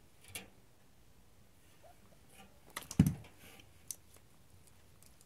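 A kitten playing with a wand toy with a red ball: scattered light taps and clicks, and one louder thump about three seconds in.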